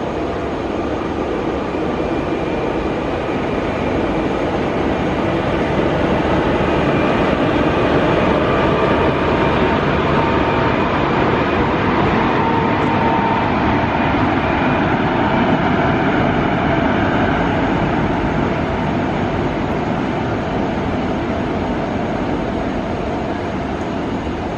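Passenger train hauled by an electric locomotive running past on the line, its coaches rolling by with a steady rumble and rattle of wheels on rail. The noise swells over the first several seconds and eases a little near the end.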